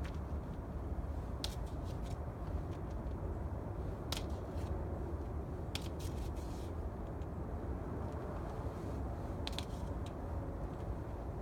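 A spoon scraping and tapping now and then as it works flour into oil stains on a concrete floor, a few short sharp scrapes over a steady low rumble.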